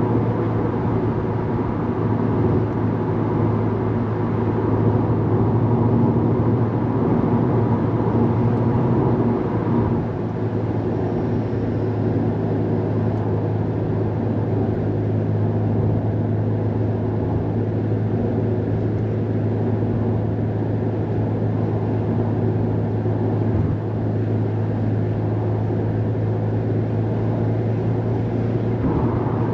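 Subaru WRX STI's turbocharged flat-four engine and road noise heard from inside the cabin while driving: a steady low drone that dips briefly about ten seconds in.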